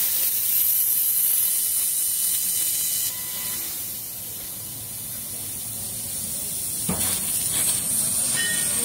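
2 kW fiber laser cutting machine cutting sheet metal: a steady high hiss from the cutting head. The hiss drops away about three seconds in and comes back about seven seconds in.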